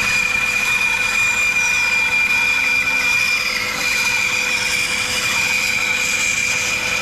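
Laguna 14-inch bandsaw running and cutting through a block of timber along the grain. It makes a steady high-pitched whine over a lower hum.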